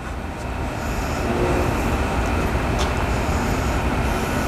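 A steady low rumble that swells up over the first second and then holds, with a few faint clicks.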